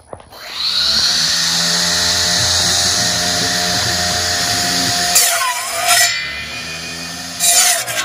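Electric motor-driven circular saw blade on a small RC robot spinning up and cutting through a 2-inch pine board, a steady loud whine with cutting hiss. About five seconds in the pitch dips and recovers and the sound drops lower. Two brief loud bursts come near the end.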